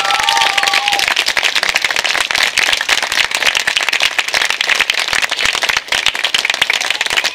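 Audience applause, a dense steady clapping, with the band's last held sung notes dying away about a second in.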